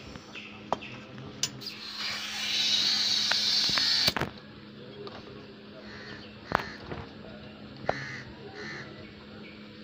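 Compressed air hissing from an air-hose nozzle for about two seconds, rising and then cut off sharply, as air is blown into a motorcycle inner tube during a puncture repair. Light clicks of handling and bird calls follow.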